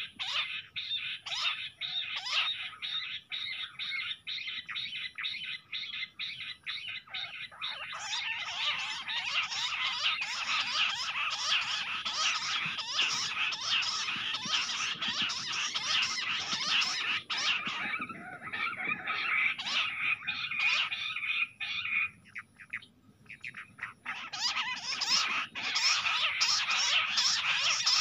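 Bush quails calling: a dense run of rapid, high chirping whistles. The chirping grows busier and louder about a third of the way in, with two short lulls later on.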